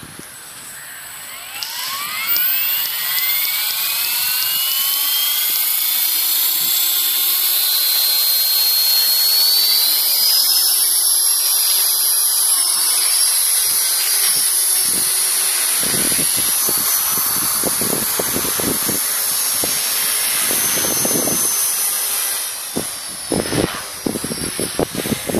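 ALZRC 450 electric RC helicopter's brushless motor and rotors spooling up, a whine rising in pitch over several seconds and then holding steady at flight speed. Past the middle, gusty low rumbling joins in as the helicopter lifts off and climbs.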